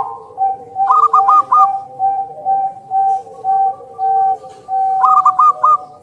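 Zebra dove (perkutut) singing its cooing song. A quick run of about four higher notes is followed by a long string of evenly spaced coos that grow slightly longer, and the quick run returns about five seconds in.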